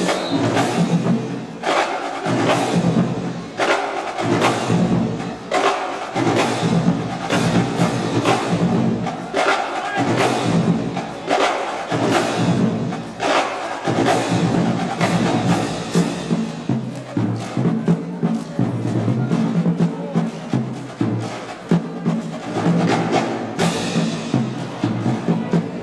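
Marching band playing, with sharp, repeated drum hits driving the beat over sustained horns.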